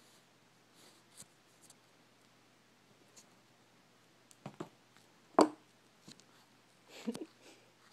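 A few light taps and knocks in a quiet room, with one louder thump a little past halfway and a short cluster of knocks near the end.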